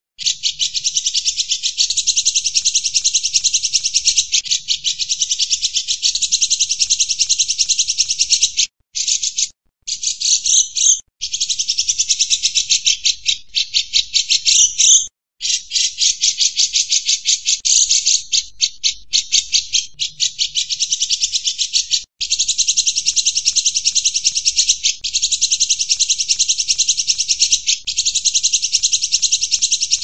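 Cucak jenggot (grey-cheeked bulbul) singing a high, very rapid chattering trill that runs on almost without stopping, with a few short breaks.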